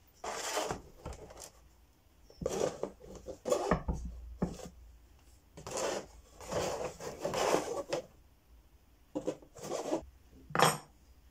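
Motorcycle front fork leg being handled in a metal oil drain pan: metal scraping and clattering against metal in several short spells, with a sharp clank near the end.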